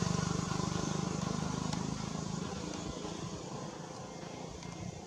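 A motor vehicle's engine running and fading steadily away, a low hum dying out into background noise.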